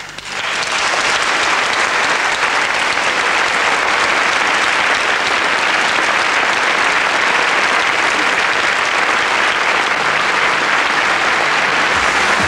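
Large theatre audience applauding, breaking out and swelling to full within the first second, then steady. Music starts up again at the very end.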